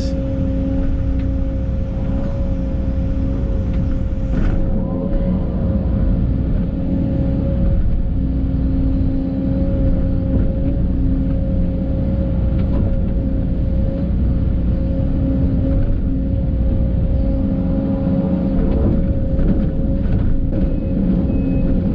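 Case CX210 excavator's diesel engine running steadily with a constant whine, its lower note coming and going as the hydraulics work while digging.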